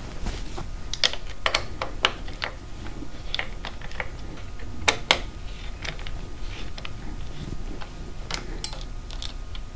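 Irregular light clicks and taps of a hex key and small metal parts as a motorcycle handlebar perch mount is unbolted, with two sharper clicks close together about five seconds in.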